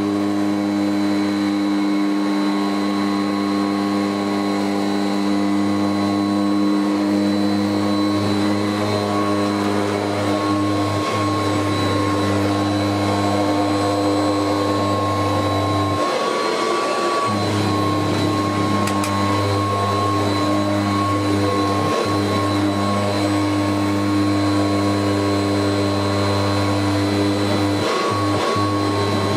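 Kirby Heritage 2 upright vacuum cleaner running steadily while vacuuming carpet: an even motor hum with a high whine.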